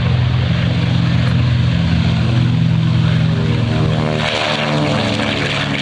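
B-25 Mitchell's twin Wright R-2600 radial engines running at takeoff power, a loud steady drone of propellers. About four seconds in the tone shifts and a brighter hiss rises.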